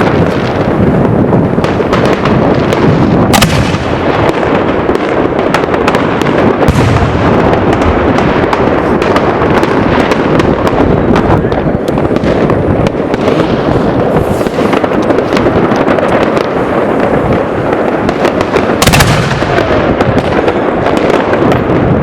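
Fireworks going off in a dense, unbroken crackle of small bangs, with two louder sharp bangs, one about three seconds in and one near the end.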